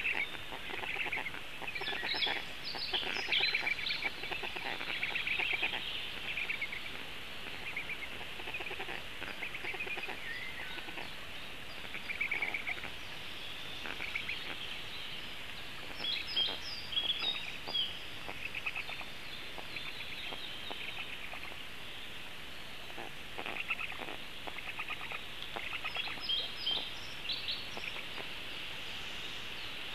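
Birds calling: clusters of short, high chirping notes over a steady outdoor background, busiest a few seconds in, again about halfway, and near the end.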